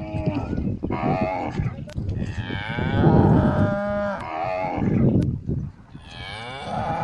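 Cattle mooing: three long moos. A short one comes at the start, a long one about two seconds in lasts some three seconds and falls in pitch at its end, and another begins near the end. A rough low rumble runs underneath.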